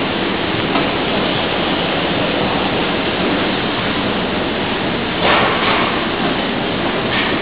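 OTIS inclined moving walkway running under the rider: a steady, even noise from the moving pallets and handrail, with a brief louder burst of noise about five seconds in.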